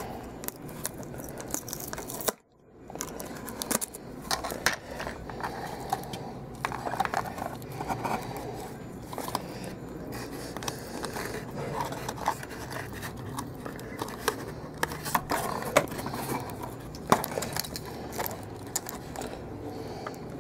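Cardboard box and plastic packaging being handled: scraping and crinkling with many sharp clicks, as a mini RC helicopter is worked out of its plastic tray. The sound drops out briefly a little over two seconds in.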